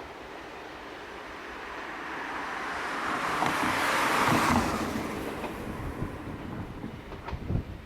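A vehicle passing close by: a rushing sound that swells to its loudest about four seconds in and then fades, with a few knocks near the end.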